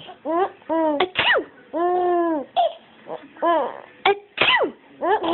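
A young child laughing in a run of short, high-pitched squeals, amused by sneezing. A few short, sharp vocal bursts are mixed in about a second in and again near the end.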